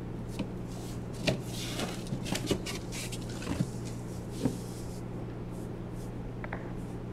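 Cardboard boxes being handled: a run of knocks, scrapes and cardboard rustles over the first four and a half seconds, loudest about a second in, over a steady low hum.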